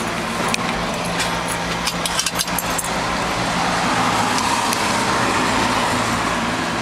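The 450-horsepower engine of a restored 1971 Chevrolet C-10 pickup idling steadily, heard from inside the cab. A few sharp clicks and rattles come about two seconds in.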